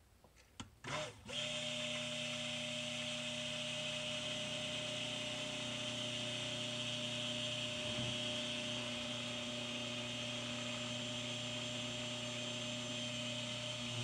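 Electric stick blender switched on after a couple of brief pulses about a second in, then running steadily with a constant motor whine while it blends soap batter in a crock pot, taking it from light toward medium trace.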